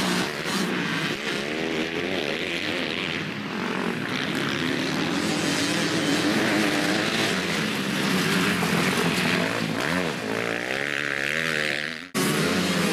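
Motocross dirt bike engines revving hard and easing off as riders pass over the track, the pitch rising and falling with each throttle change. The sound cuts out for a moment near the end.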